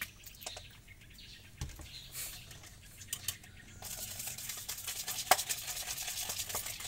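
Orange plastic spoon stirring fast in a thin plastic cup, ticking and scraping against its sides as it mixes powdered drink flavouring into syrup so it dissolves. A few light taps come first, and the rapid stirring starts about four seconds in.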